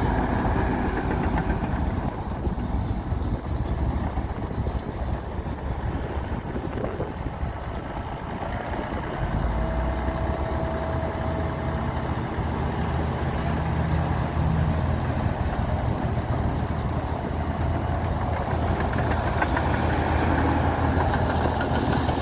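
Heavy diesel engine of a Komatsu D60P bulldozer running. About nine seconds in, the engine note turns steadier and deeper.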